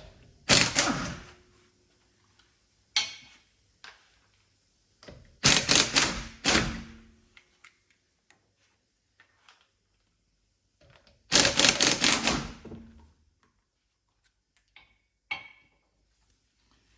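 Impact wrench rattling in three short bursts, undoing the wheel bolts on a car's rear wheel, with a few single metallic clicks in between.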